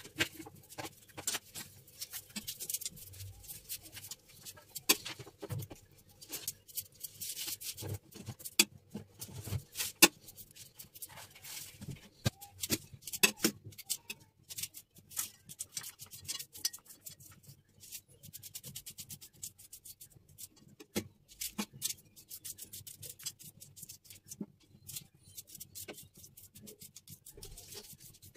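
Small knife cutting an onion held in the hand over a steel bowl: irregular crisp clicks and scrapes.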